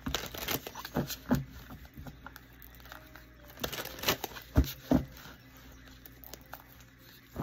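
Tarot cards being handled and laid down on a table: a few separate taps and flicks, near the start, around a second in, and a cluster around four to five seconds in.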